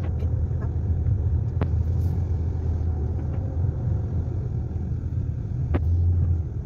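Steady low rumble of a car's engine and tyres heard from inside the cabin while driving, with two brief clicks, one about a second and a half in and one near the end.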